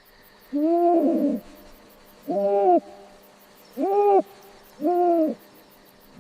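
Four hoot-like bird calls, each about half a second long, rising and then falling in pitch, spaced one to two seconds apart.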